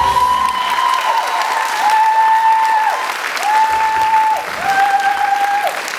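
Audience applause, with the song's last held note dying away in the first half second. Over the clapping a high held note sounds about four times, each about a second long.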